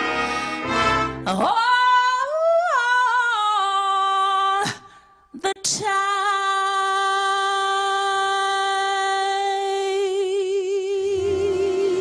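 Female jazz vocalist singing an unaccompanied cadenza: sliding runs, a short pause for breath near the middle, then one long held note with vibrato. The big band comes back in under the held note near the end.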